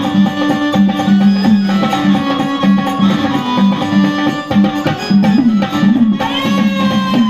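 Marathi gondhal devotional folk music: hand drums keep a steady rhythm under held melodic tones, with a bending melodic line near the end.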